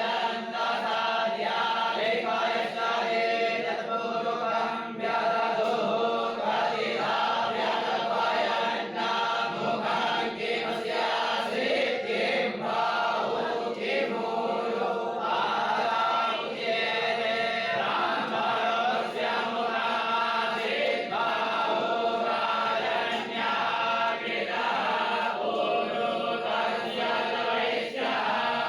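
A group of voices chanting mantras together in unison, steady and unbroken, like a recitation of religious verses.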